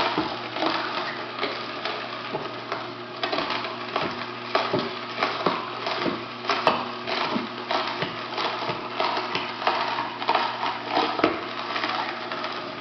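Electric juicer running with a steady motor hum while carrots are pushed through it, with irregular crunching as they are ground up.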